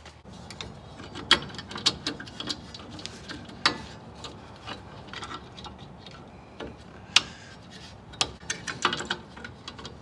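Irregular sharp metallic clicks and taps of parking brake shoe hardware, the hold-down pin, keeper and locking pliers, being worked against the shoe and backing plate.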